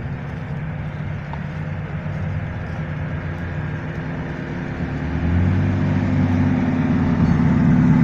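Off-road buggy's engine running through the undergrowth; about five seconds in it gets louder and revs up and down as it pushes over rough ground.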